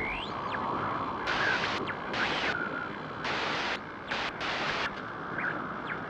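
Sound effect for a logo intro, the tail after a boom. A steady hiss carries a few short whistling glides near the start and about four sudden surges of hiss, each about half a second long, and then fades away.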